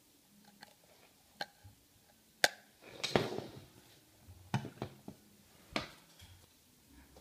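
Hard plastic clicks and knocks as a LIFX smart bulb is handled and fitted into a plastic lamp-holder socket. There is one sharp click about two and a half seconds in, a longer rattling scrape just after, then a few more scattered clicks.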